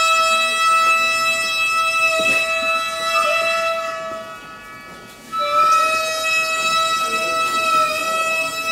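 A single Japanese gagaku wind instrument playing long held notes with many overtones and slight bends in pitch. The note fades out about four seconds in and comes back a second later with an upward slide.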